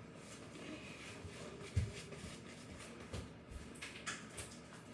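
Faint handling noises in a kitchen: light knocks and rustles, with one soft low thump a little under two seconds in.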